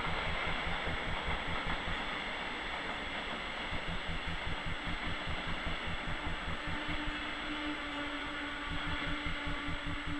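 Steady hum and whirr of a standing ÖBB Taurus electric locomotive, with a fast low throbbing underneath. About six seconds in, a steady tone joins it as a second train pulls in behind.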